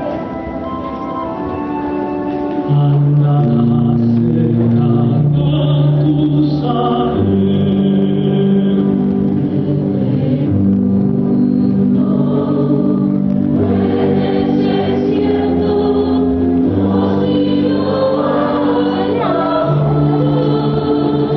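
Musical-theatre music played for a stage dance number: held keyboard chords with choir-like singing, and a low bass line that comes in about three seconds in as the music gets louder.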